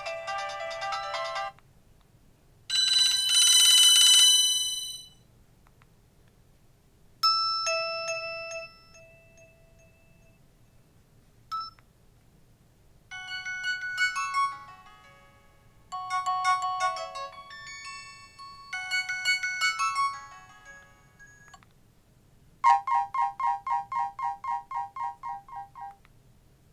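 Nokia 215 (2015) playing its built-in ringtones and alert tones through its small loudspeaker, one short preview after another with quiet gaps between. There are about eight separate snippets of melodies and beeps, each lasting a few seconds or less. The last is a tone pulsing about four times a second.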